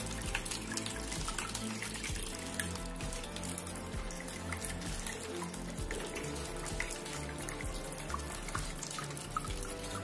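Water pouring in thin streams from the spouts of a small cement tabletop waterfall fountain and splashing steadily into its bowls, with background music playing over it.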